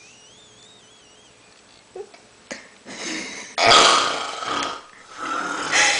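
A person snoring: after a faint breath, one loud, rough snore about three and a half seconds in lasting about a second, and another starting near the end.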